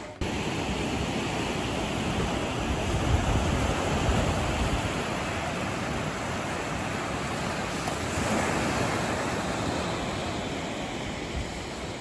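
Small sea waves washing up onto a sandy beach and lapping in shallow water, a steady rush of surf.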